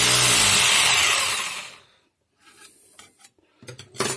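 A barrel-type П30-11 rotary hammer's electric motor runs steadily, then is switched off and spins down about a second and a half in. The tool has the fault of giving little or no hammer blow. Faint handling clicks follow, with a sharper knock near the end.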